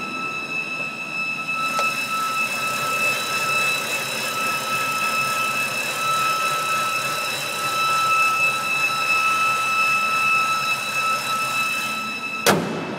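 A steady, high-pitched whine: one unwavering tone with overtones above it, holding the same pitch throughout. A sharp knock sounds near the end.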